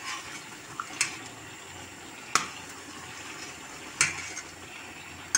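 Thick tomato and pepper sauce boiling in a stainless steel pot while a spoon stirs it: a steady bubbling hiss broken by four sharp clicks spaced about a second and a half apart.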